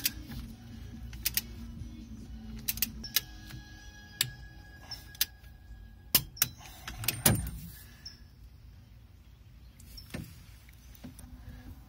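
Irregular sharp metal clicks and clinks of a ratchet wrench, extension and socket being worked on a Borg Warner Velvet Drive marine transmission, tightening the bolts of its strainer cover.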